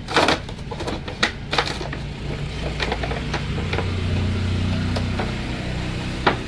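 A steady low mechanical hum that swells for a second or two about halfway through, with scattered sharp knocks and clicks.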